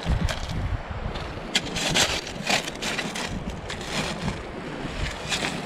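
Wind buffeting the microphone, with the crunch and scrape of a perforated metal sand scoop digging into sand and pebbles. The scraping comes in a few sharp strokes, mostly between one and a half and two and a half seconds in.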